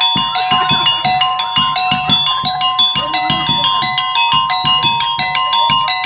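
Street monkey-show (topeng monyet) percussion music: a drum beats a quick, even rhythm under a busy repeating tune of bright, ringing metal notes.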